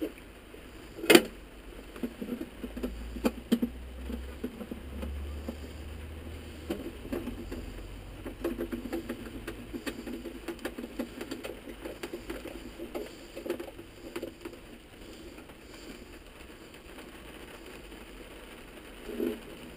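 Handling noise from working a small metal fitting on a Propex HeatSource heater: a sharp click about a second in, a few more clicks around three seconds in, then light tapping, scraping and rustling.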